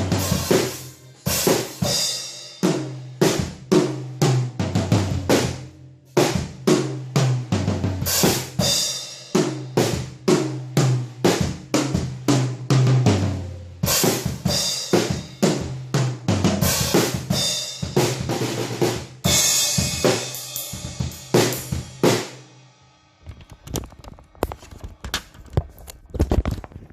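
Acoustic drum kit, damped with Moongel gel pads, played in a fast jam: snare and bass drum patterns with cymbal washes and rolling tom fills. Near the end the playing stops, leaving only scattered faint knocks and rustling.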